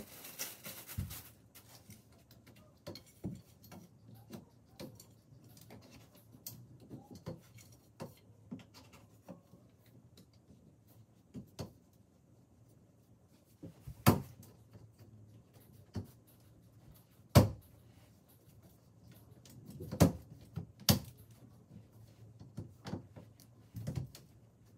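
Curved wooden bed slats being handled and seated in their end holders on a bed frame: scattered light clicks and rattles, with four sharper knocks in the second half.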